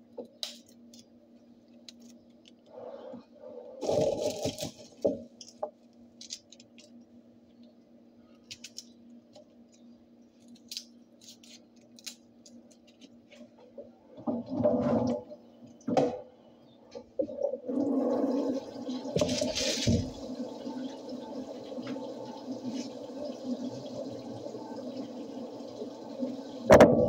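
Dishwashing at a kitchen sink: scattered clinks and knocks of dishes and pots, then the tap running steadily into the sink from about two-thirds of the way in, with a loud knock near the end. A steady low hum sits underneath.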